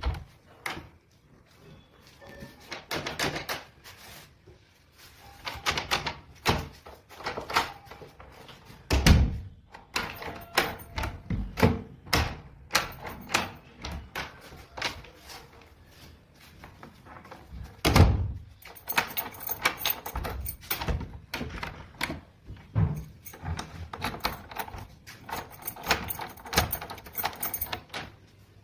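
Irregular clicks and knocks, with two heavier thuds about nine and eighteen seconds in, and faster high ticking through the last third.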